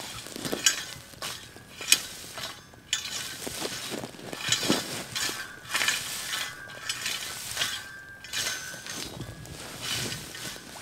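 Metal bow rake dragged through dry wood-chip mulch in repeated strokes about one a second, the tines scraping and the chips rustling and clinking. Two sharp clinks stand out in the first two seconds.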